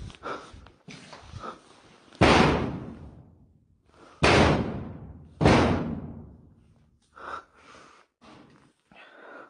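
Three loud bangs, the second about two seconds after the first and the third just over a second after that, each ringing out in a long echo through a large empty building.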